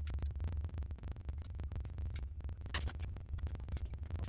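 Faint clicks and scrapes of a small screwdriver and laptop parts being handled during reassembly, with one brief louder scrape about two-thirds of the way in, over a steady low hum.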